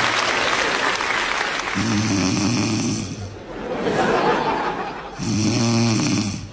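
A woman snoring loudly: two long snores, each a low buzzing stretch, with breathy rushes of air between them.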